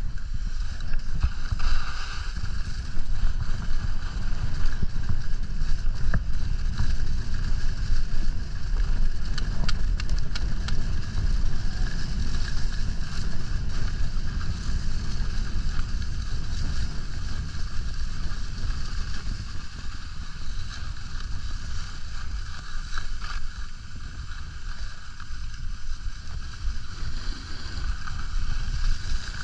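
Wind buffeting the microphone of a skier's camera in motion, a steady low rumble, with the hiss of skis running over packed snow.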